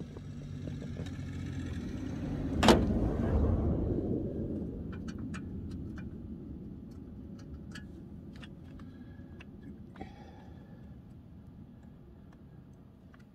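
A vehicle driving by: a low rumble builds over the first few seconds and then slowly fades away. A single sharp clack comes near the loudest point, about three seconds in, and light clicks follow.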